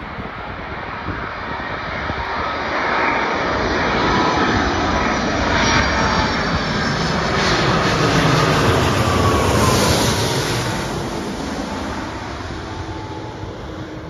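Airbus A330-300 airliner's jet engines passing low overhead on final approach. The noise builds to a peak about nine seconds in and then fades, with tones sliding down in pitch as it goes by, over gusty wind rumble on the microphone.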